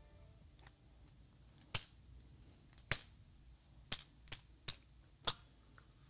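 Wooden karakuri puzzle box clicking and knocking as it is handled and tried: about six sharp, irregular clicks.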